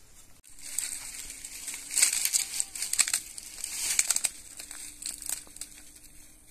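Dry crackling and crunching as something brittle is crushed and handled, with sharper snaps about two, three and four seconds in.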